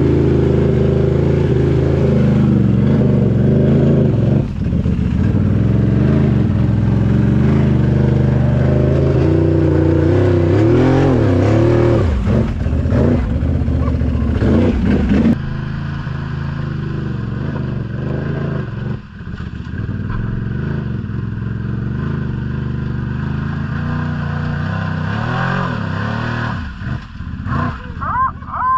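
ATV engine running close by, heard from the machine itself, revving up and down in bursts as it works through mud. About halfway the sound drops to a quieter engine, which revs again near the end.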